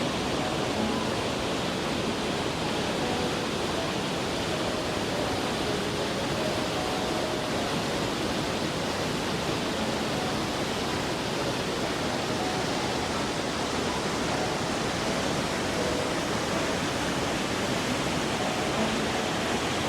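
Steady rush of a large waterfall: Kegon Falls, where the water drops 97 m down a rock face in one plunge.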